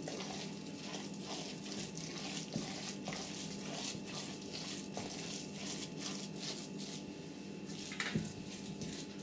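Wooden spatula stirring wet ground beef mince in a metal bowl: irregular squelching and scraping strokes, with a faint steady hum underneath.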